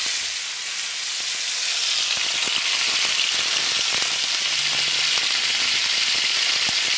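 Cubes of pork neck sizzling in hot oil in a stainless steel frying pan, with chopped onion tipped in about four seconds in: a steady hiss with scattered small crackles.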